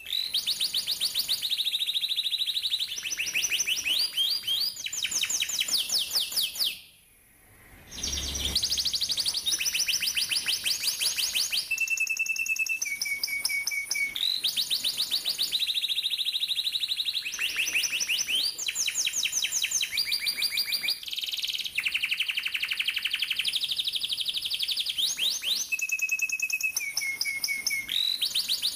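Domestic canary singing a long, continuous song of fast rolls and trills, with short held whistled notes between them and a brief break about seven seconds in.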